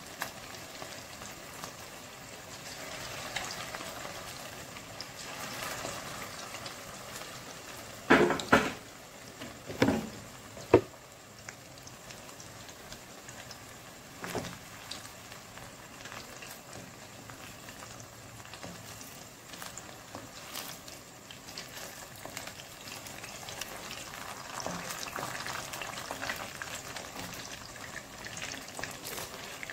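Cornflour-and-egg coated chicken pieces deep-frying in hot oil in a kadai, a steady sizzle with bubbling. A few sharp knocks of the wooden spatula against the pan come about eight to eleven seconds in, and once more near fourteen seconds.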